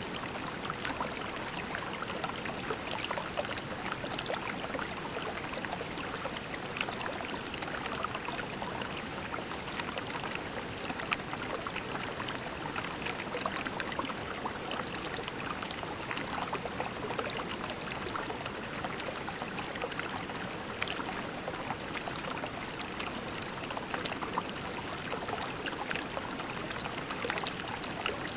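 Shallow creek water flowing steadily over pebbles, a constant babble full of small splashes and trickles.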